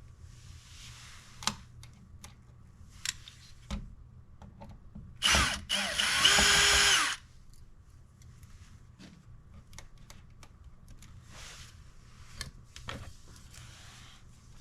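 Power drill driving a screw while a wall outlet is mounted. About five seconds in it gives a short burst, then runs for about a second and a half and stops. Light clicks and knocks of handling the outlet and its parts come before and after.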